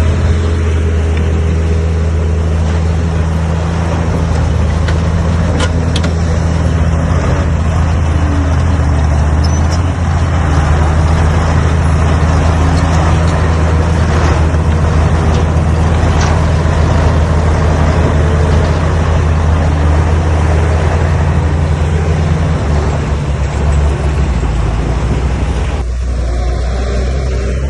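Heavy diesel engines of earthmoving machinery running steadily under load, a deep even drone with a few light knocks. The sound shifts abruptly near the end.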